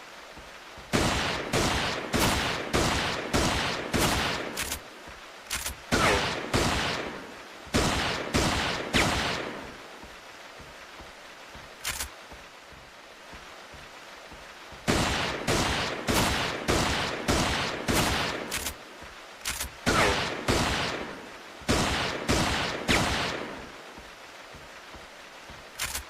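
Revolver gunshot sound effect: shots fired in quick runs of several, about two a second, each crack followed by a short ringing echo. There are pauses of a few seconds between runs and single shots near the middle and end.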